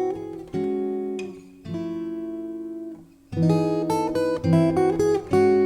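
Background music: plucked acoustic guitar playing a melody, briefly dropping away twice.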